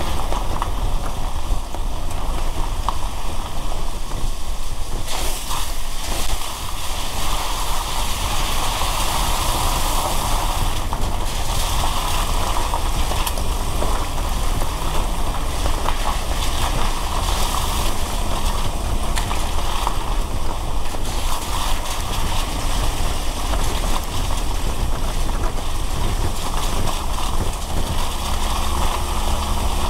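A car driving on a wet road in the rain: a steady hiss of rain and tyre spray over a low road rumble.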